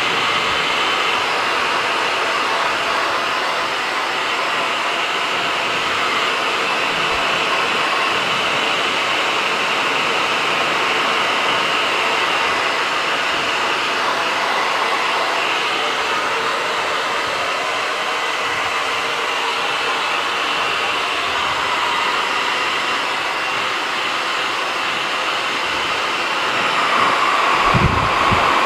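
Hand-held hair dryer running steadily with an even rushing whoosh. Near the end it gets louder, with low gusty buffeting as the nozzle is held at a monkey's open mouth.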